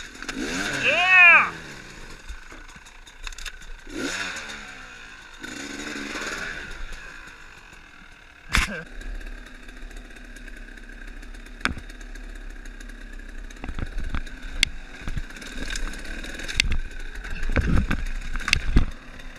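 Dirt bike engine revved in short rising-and-falling blips, then running low and steady. A sharp knock comes about eight and a half seconds in, and scattered knocks and clatter follow, heavier thumps near the end.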